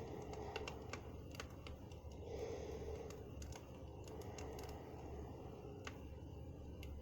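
Campfire crackling: irregular sharp pops and snaps from burning wood over a steady low rumble of the fire.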